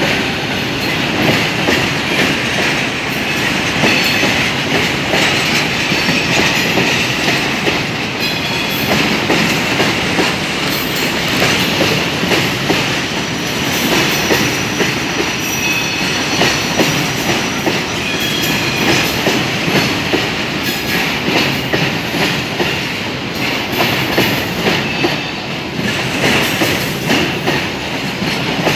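Freight train wagons rolling past, their wheels clicking rhythmically over the rail joints, with brief high-pitched wheel squeals now and then.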